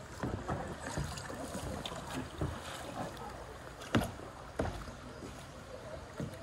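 Plastic sit-on-top kayaks drifting on a river, with water moving around the hulls. Scattered sharp knocks on the kayak come through it, the loudest about four seconds in.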